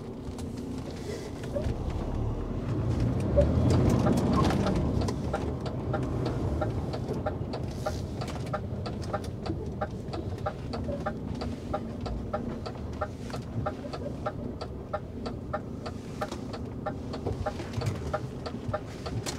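Truck's diesel engine running while the lorry manoeuvres, swelling louder for a couple of seconds near the start. Over it comes a steady, even clicking, about two clicks a second, typical of the turn indicator ticking in the cab.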